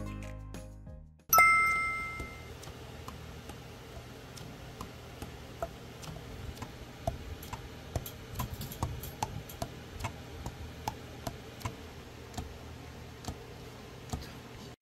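A bright two-tone ding about a second in. Then the keys of a Yanagisawa S-992 curved soprano saxophone are pressed and released, one or two soft irregular clicks a second, over a low steady hum. These are the pads closing on their tone holes during a leak test, and they seat tightly.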